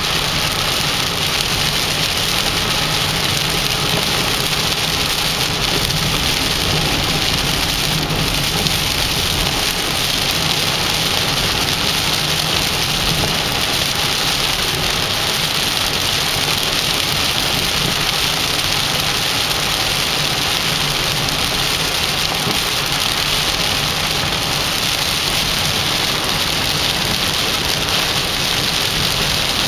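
Heavy rain pouring steadily, an even, unbroken hiss of downpour.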